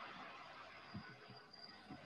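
Near silence: faint steady hiss of room tone, with a few soft low thumps about a second in.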